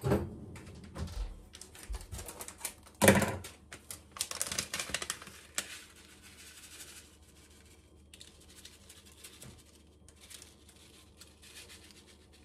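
A small plastic packet of black sesame seeds crinkling as it is handled and snipped open with scissors, with a sharp loud crackle about three seconds in. Seeds are then shaken out in runs of fine light ticks onto the dough and parchment paper.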